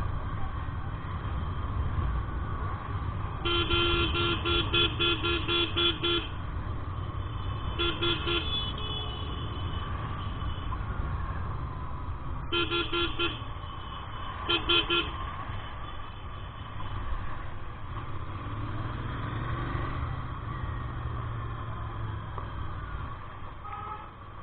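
A vehicle horn honking in four bursts of quick repeated beeps, about four a second, over a steady low rumble of road and wind noise from a moving motorcycle.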